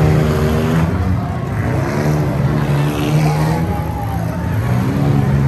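Demolition derby cars' engines running and revving, their pitch rising and falling as the drivers work the throttle.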